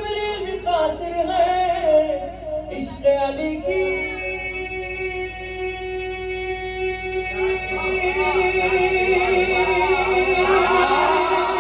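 A man sings a manqabat (devotional verse in praise of Imam Ali) into a microphone, unaccompanied. Ornamented phrases give way to one long held note about four seconds in, and new sung phrases come in over it near the end.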